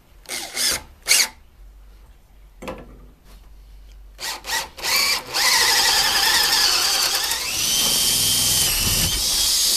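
Makita drill driving a 5/8-inch wood auger bit into a 2x4. Several short bursts of the motor, then it runs steadily for about four and a half seconds as the bit bores into the wood.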